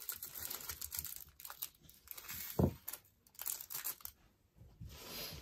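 Small plastic packet of diamond-painting drills crinkling as it is cut open with scissors and handled, with one dull knock a little past halfway.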